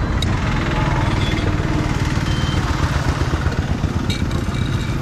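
Roadside motor traffic, dominated by a nearby engine idling with a steady low throb.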